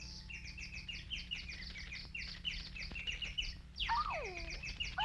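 Cartoon canary chirping: a fast run of short, high chirps, each falling in pitch, several a second. About four seconds in, a lower, wavering, sliding tone joins it.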